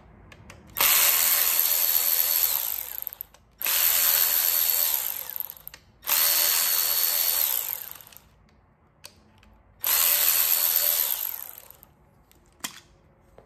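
Cordless electric ratchet running in four bursts of about two seconds each, backing out the fasteners that hold the bottom outlet on a plastic electric water pump. Each burst holds a steady high whine that falls away as the motor winds down.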